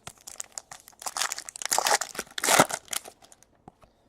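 Foil trading-card pack wrapper crinkling and tearing as a pack of Bowman Chrome cards is ripped open, loudest in two stretches after about a second, then a few light clicks of card handling.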